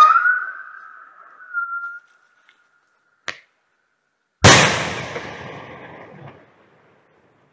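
Whistle rocket's whistle fading out over the first two seconds, its pitch rising slightly, then a faint short tick. About four and a half seconds in comes a sudden loud bang as the rocket bursts, echoing away over about two seconds.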